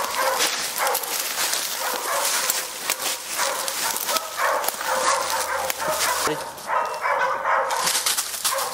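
Hunting dogs barking over and over, the bay dogs holding a wild hog at bay.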